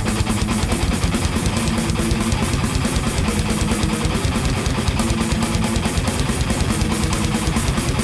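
Thrash metal played by a band with distorted electric guitars, bass and drum kit, in a fast riff with a steady driving pulse. No vocals.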